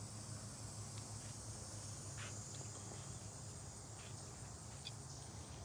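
Faint outdoor ambience: a steady high-pitched insect chirring, with a low steady hum underneath and a few faint ticks.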